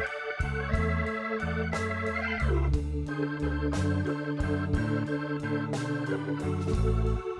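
Background music: a blues-style instrumental led by Hammond-type organ over a walking bass line and a steady beat, with a sliding note a little after two seconds in.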